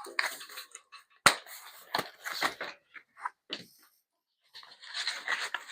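Packing material being handled and pulled off a new e-bike: scattered rustling with a few sharp clicks and knocks, the sharpest about a second in.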